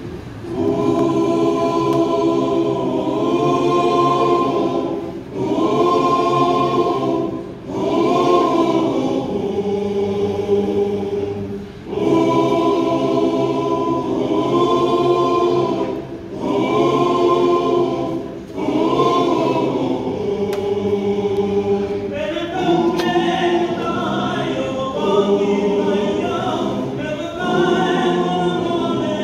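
Mixed choir of men, women and children singing in parts, in phrases of a few seconds with short breaks for breath between. About two-thirds of the way through the singing turns to a busier passage with faster-moving notes.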